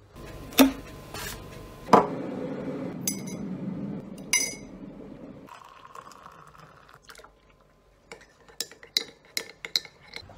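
A cup of coffee being made in a ceramic mug: a few knocks and ringing clinks of the mug and teaspoon, hot water poured from a kettle into the mug through the middle, then a teaspoon stirring, clinking quickly against the mug in the last couple of seconds.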